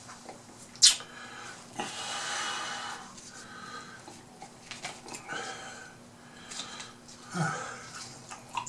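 A man breathing hard and sniffling between bites, his nose running from hot sauce on fried fish. There is a sharp click about a second in, then several breathy exhales.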